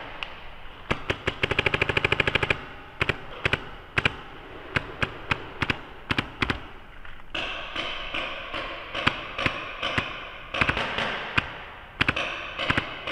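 Paintball markers firing in an indoor hall: a quick string of about a dozen shots a little over a second in, then single shots and short pairs of shots scattered through the rest.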